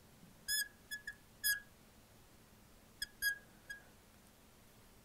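Marker squeaking on a glass lightboard as words are written: a run of short, high squeaks in the first second and a half, then a few more about three seconds in.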